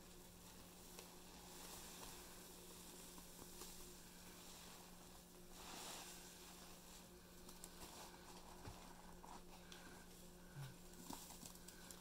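Faint squelching and fizzing of soapy, powder-caked sponges being squeezed by hand in a tub of foam, with a wetter hiss swelling about six seconds in and a few small wet clicks near the end.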